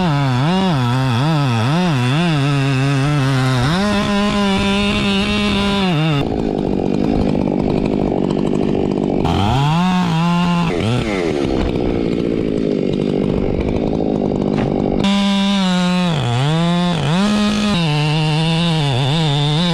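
Chainsaw engine revving up and down in quick blips, held at high revs, with two stretches where its tone turns into a dense rasp as the chain cuts into wood.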